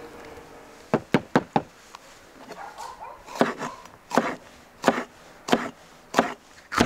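Chef's knife chopping a red chili pepper on a wooden cutting board: four quick knife strikes against the board about a second in, then steady single chops about one every 0.7 seconds.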